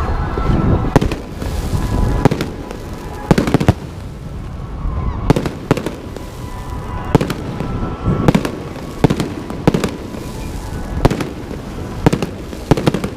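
Fireworks display: aerial shells bursting in a run of sharp bangs, about one or two a second, some in quick pairs and clusters, over a steady rumble.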